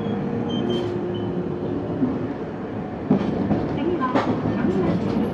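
Tosaden Kotsu 700-series tram running, heard from inside the car: a steady hum from the running gear, then sharp knocks of the wheels over rail joints from about three seconds in.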